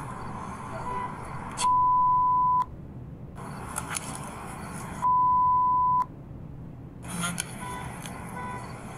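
Two one-second censor bleeps, a steady pure tone about 3.5 s apart, each replacing the speech on bodycam audio. Between them is low background noise from the bodycam, with a few faint short beeps near the end.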